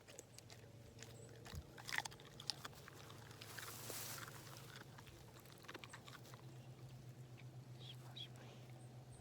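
A dog chewing a half-cooked carrot: irregular crunching bites, thickest in the first few seconds, over a faint steady low hum.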